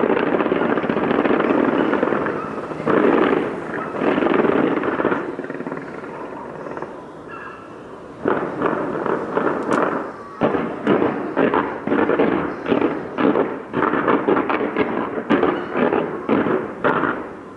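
Fireworks display: a dense run of bursting shells and crackle, a short lull, then rapid sharp bangs, several a second, from about eight seconds in.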